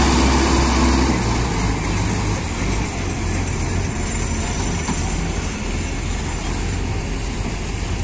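Diesel tractor engine running. A steady low engine drone drops off about a second in, leaving a quieter, rougher engine sound.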